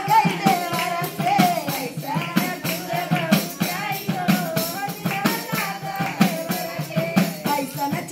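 Women singing a folk song to a hand-held frame drum struck in a steady beat, with hand clapping.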